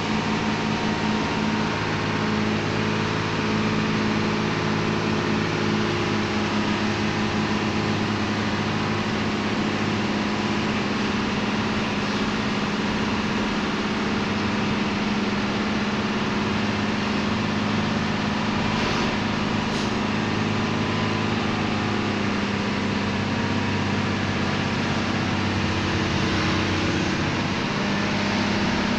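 Truck's diesel engine running steadily, heard from inside the cab while driving, with a constant low drone and road rumble.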